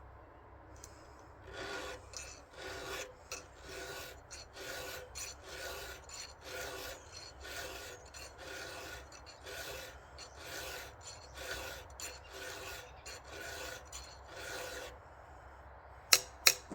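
A 7/32-inch round chainsaw file rasping across the cutter teeth of a dirty, worn saw chain in steady hand strokes, about two a second. Near the end come two sharp clicks.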